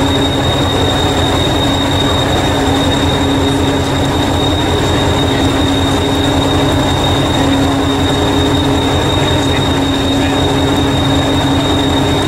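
Diesel engine of the preserved Hastings diesel-electric multiple unit 1001 idling while it stands at a platform. A steady low throb runs under a constant hum and a thin high whine.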